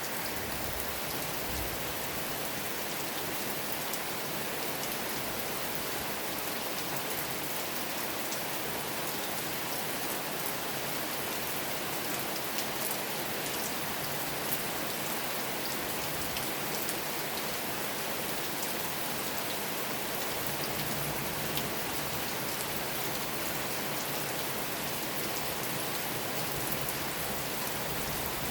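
Steady rain falling and pattering on a surface, an even hiss with scattered individual drop ticks.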